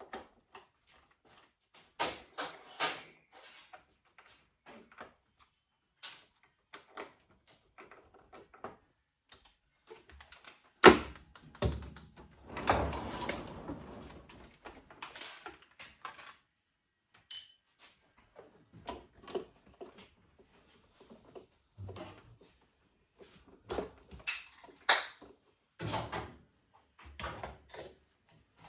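Handling noises from the coffee machine's parts and tools: scattered clicks and knocks. There is one sharp knock about eleven seconds in, then a couple of seconds of scraping.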